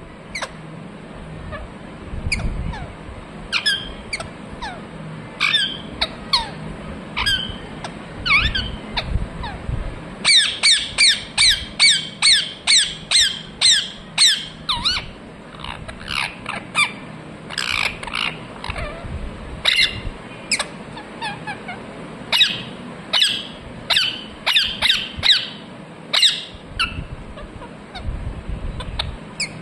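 Ring-necked parakeet squawking: short, sharp calls repeated throughout, with a fast run of about two to three calls a second for several seconds in the middle.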